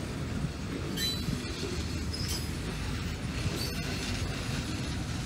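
Freight boxcars rolling slowly over the track during a shoving move: a steady low wheel rumble, with brief high wheel squeals and clinks a few times.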